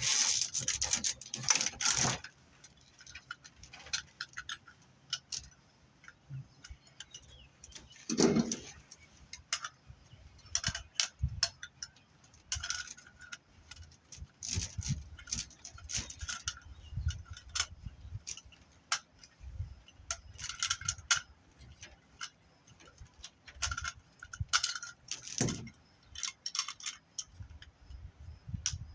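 Lengths of BX armored cable being handled and sorted: irregular metallic clinks and rattles from the spiral metal sheathing, louder at the start and about eight seconds in.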